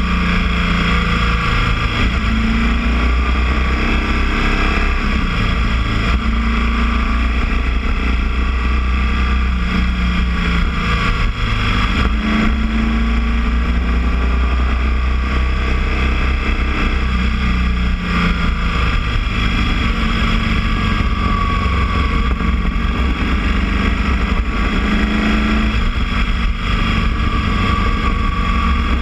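Boxer-twin motorcycle engine running on the move, its note rising and falling every few seconds as the rider accelerates and eases off, over a steady rushing hiss.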